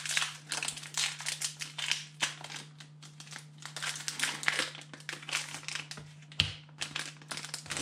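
Foil wrapper of a Pokémon TCG booster pack crinkling in a rapid, irregular crackle as it is handled and opened.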